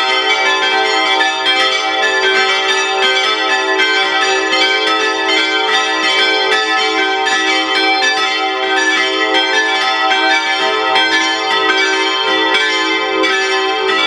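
Full peal of five Rincker-cast church bells, tuned e'' g'' a'' c''' d''', ringing together with their strokes overlapping in a dense, steady pattern, rung to call to the Pentecost service.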